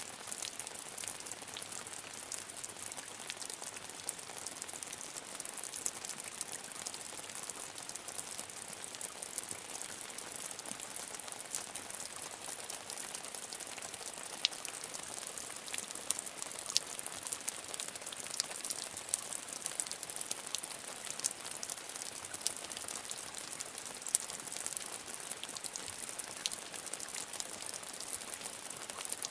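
Steady rain falling: an even hiss with many fine drop ticks scattered all through it.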